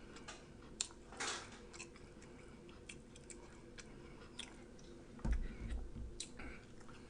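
A person chewing food: soft, scattered mouth clicks, with a louder, lower stretch of sound a little past five seconds in.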